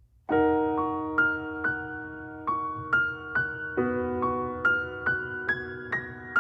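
Background music: a slow piano intro, a held chord with single notes picked out about twice a second, starting a moment in.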